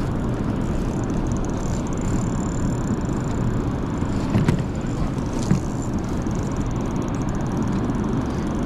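Fishing boat's engine running steadily, with two brief knocks about halfway through.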